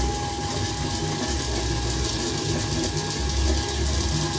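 Gas burner of a popcorn machine running under its kettle, a steady hiss with an uneven low rumble. The oil, corn and sugar are still heating, before the corn starts popping.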